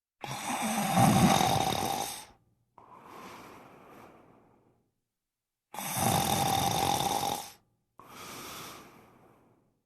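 Loud snoring, twice over: each time a loud snore of about two seconds followed by a quieter breath that fades away.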